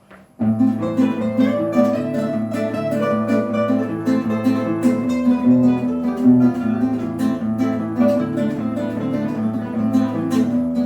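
Instrumental interlude of a folk song: acoustic guitar strummed and plucked over steady bass notes, starting about half a second in after a brief pause.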